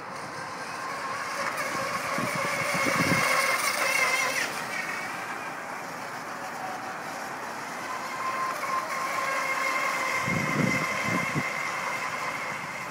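Small RC catamaran's electric motor and propeller whining at speed, getting louder as the boat runs close about three to four seconds in and again around ten seconds in.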